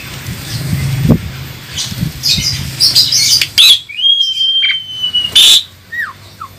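Javan pied starlings (jalak suren) calling: a run of harsh chattering squawks, with one long drawn-out whistle about four seconds in.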